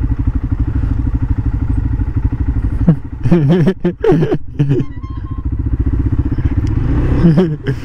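Quad bike engine idling with an even pulsing beat. About three seconds in, and again briefly near the end, louder sounds that rise and fall in pitch sit over it for a second or two.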